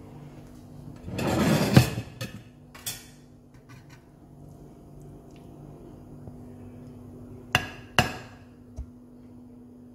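A spoon scrapes and clatters in a metal pressure cooker as dal is scooped out, then knocks twice with sharp ringing clinks against the pot or plate while serving. The clatter is loudest about a second or two in, and the two clinks come near the end.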